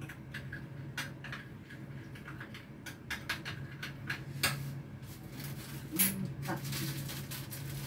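Chopped garlic sautéing in a little oil in a wok, with irregular sizzling crackles and pops over a steady low hum. A sharper knock stands out about six seconds in.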